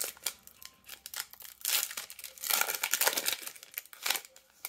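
The shiny foil wrapper of a Panini Contenders basketball card pack crinkling and tearing as the pack is opened and the cards are pulled out. It comes in irregular rustling bursts, loudest in the middle.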